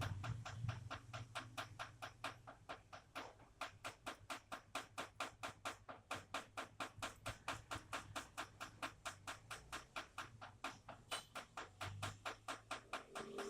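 Rainwater dripping in a fast, even rhythm of sharp drops, about four to five a second.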